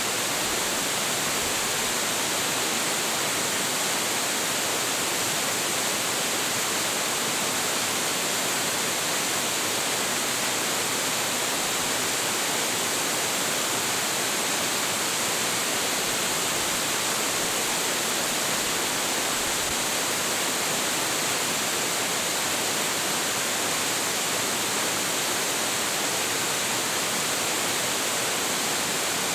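Hiji Otaki, a tall waterfall with a heavy flow, crashing down in a steady, unbroken rush of falling water.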